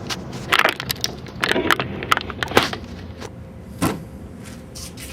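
Irregular sharp knocks and clatters in several quick clusters, the last a single knock about a second before the end, like hard objects being handled and set down.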